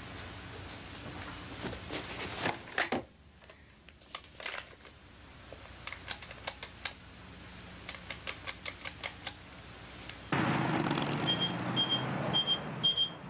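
Clicks of a telephone handset being picked up and dialled, ending in an evenly spaced run of clicks. Near the end a loud hiss starts and a high electronic beeping repeats about twice a second.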